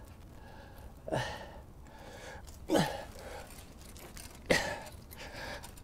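A man grunting with effort three times, about a second and a half apart, each grunt sharp at the start and falling in pitch, as he strains to close long-handled bolt cutters on a bike lock.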